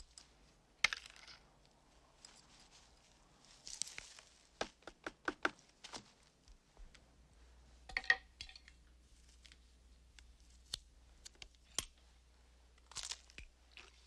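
Scattered light clicks, taps and brief rustles of hands handling small metal tools, a spoon, jars and a stuffed bird on a cluttered workbench, with a quick run of ticks about a third of the way in.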